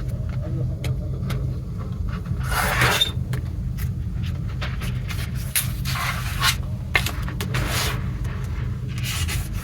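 Packaging being handled: several short rustles and scrapes with light clicks over a steady low hum.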